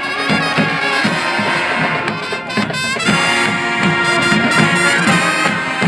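School band playing brass (trumpets and trombones) over a steady drum beat.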